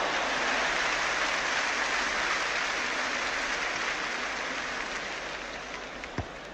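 Large football stadium crowd noise from a sound-effects record: a steady, noisy crowd roar that slowly dies away, with a short dull thump near the end.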